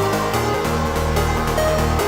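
Electronic dance background music with a steady beat and sustained synth notes.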